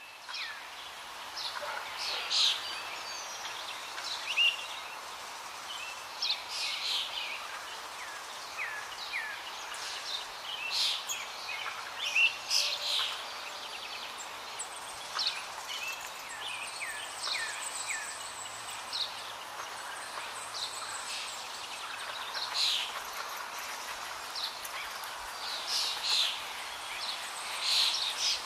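Small birds chirping and twittering in many short, quick calls, some sliding down in pitch, over a steady background hiss.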